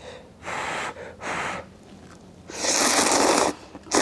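A person blows twice on a lift of hot instant cup ramen noodles, then slurps them noisily in long drawn-in pulls.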